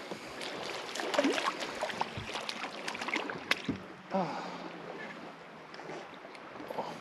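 A hooked crappie being reeled in on light tackle and swung out of the water into a bass boat, with scattered clicks and knocks that are busiest in the first half.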